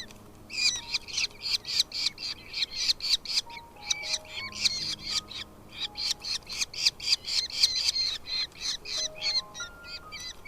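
Nestling birds' begging calls: rapid high chirps, about four a second, in two long runs with a short break between, as the chicks are fed. Soft background music plays underneath.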